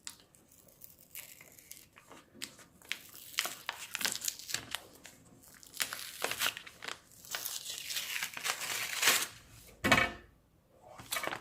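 A paper mailing envelope being torn open by hand: irregular crinkling and ripping of paper, followed by a thump near the end.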